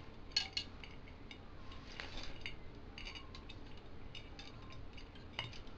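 Light, irregular metallic clicks and clinks of steel spokes knocking against each other and against the hub motor's flange as they are threaded through and laced into the wheel.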